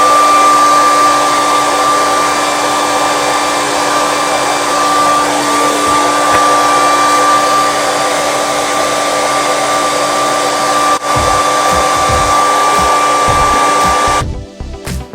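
Hair dryer blowing steadily with a constant whine, cutting off suddenly near the end.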